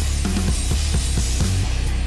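Heavy metal music with drums and a steady beat.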